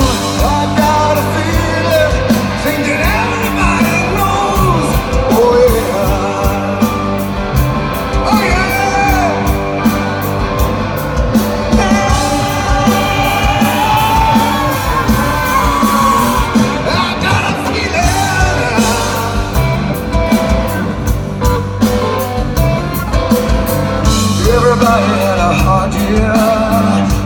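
Live rock band playing through a stadium PA, heard from the crowd at the front: a male lead vocal, sung and shouted, over electric guitar, bass and a steady drum beat.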